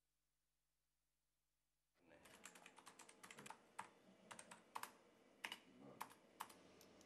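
Near silence for about two seconds, then faint room tone and irregular clicking of a computer keyboard and mouse, several clicks a second.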